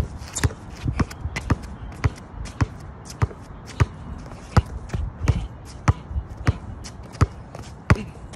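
Basketball dribbled hard on a concrete outdoor court: sharp bounces about two a second in an uneven rhythm as the player works through dribble moves.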